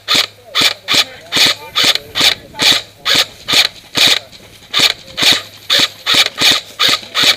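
Echo 1 M14 SOCOM airsoft electric rifle firing semi-auto shots in quick steady succession, about three a second, roughly twenty in all; each is a sharp crack of the spring-and-piston gearbox cycling. The shooting stops abruptly at the end.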